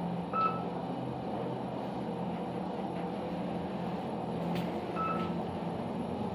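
KONE scenic glass elevator travelling up, with a steady low machine hum and ride noise. Two short electronic beeps from the car sound about five seconds apart, near the start and near the end.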